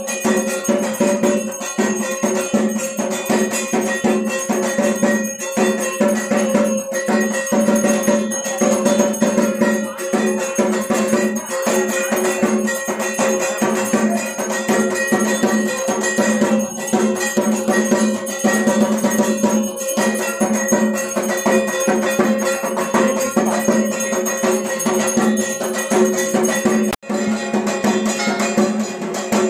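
Background music: bell-like metallic percussion over a steady drone, with a brief break near the end.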